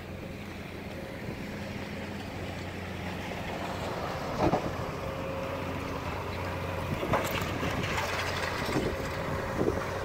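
Heavy diesel machinery, an excavator and a dump truck, running steadily, with wind buffeting the microphone. A few sharp clanks break through, the loudest about four and a half seconds in.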